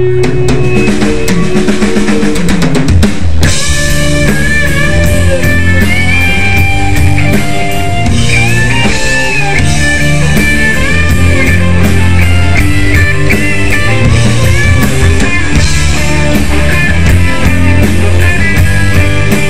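Live rock band playing electric guitars, bass guitar and drum kit, with a lead guitar playing bending melody lines. Drums and cymbals come in fully about three and a half seconds in.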